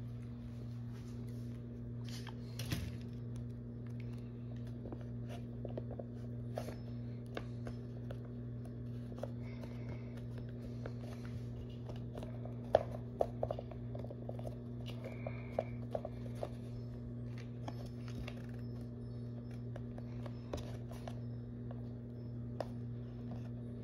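Small irregular scrapes, clicks and taps of sculpting tools and fingers working soft Sculpey polymer clay, over a steady low hum. The sharpest clicks bunch together about halfway through.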